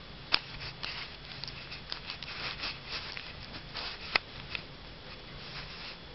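Irregular rustling and scratching among paper and plastic wrapping, with two sharp clicks, one near the start and one about four seconds in.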